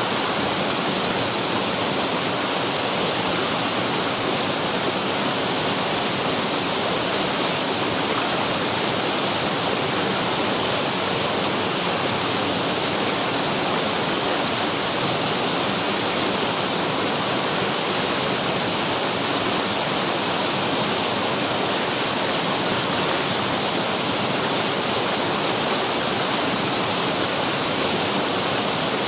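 Shallow mountain stream flowing over rocks: a steady, even rush of water.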